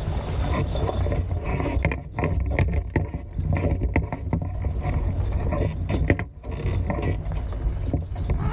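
Wind buffeting the camera microphone aboard a Hobie Tiger F18 beach catamaran, a steady low rumble, with water rushing and many irregular sharp slaps against the boat.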